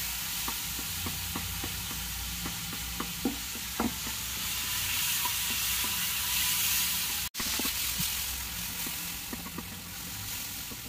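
Chopped ripe banana pieces sizzling as they fry in hot ghee in a pan, stirred with a wooden spatula that knocks lightly against the pan now and then. The sound cuts out for an instant about seven seconds in.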